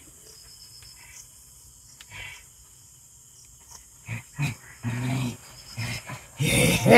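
A man's voice grunting and groaning in short low bursts, then breaking into a loud, drawn-out growling cry near the end, animal-like rather than words. Faint insect buzz behind it.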